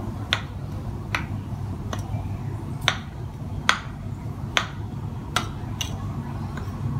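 Metal spoon clinking against a ceramic plate while stirring dry flour and seasoning, a sharp click about once a second.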